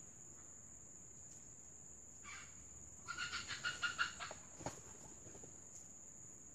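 Rooster clucking: a short call, then a quick run of about eight clucks over roughly a second, followed by a single knock. A steady high whine runs underneath.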